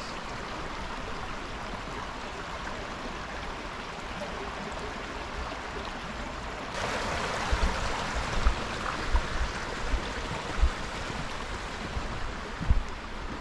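Creek water rushing steadily. It grows louder and brighter about seven seconds in, and after that a series of short low thumps breaks in.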